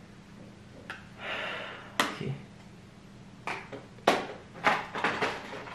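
Clicks and light knocks of makeup palettes and other makeup items being handled and set down. There is a short rustle about a second in, a sharp click at two seconds, and a quicker run of clicks over the last couple of seconds.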